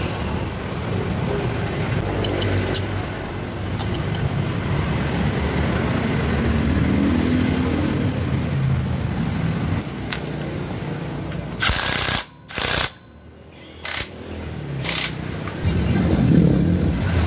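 Steady low motor-vehicle engine rumble running in the background, with a few light clicks about two to four seconds in. The sound cuts out abruptly twice, about twelve and thirteen seconds in.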